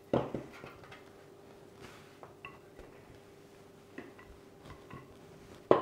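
Wooden rolling pin knocking on a wooden pastry board as bread dough is rolled out: a knock at the start, a few faint taps, and a sharper knock near the end. A faint steady hum runs underneath.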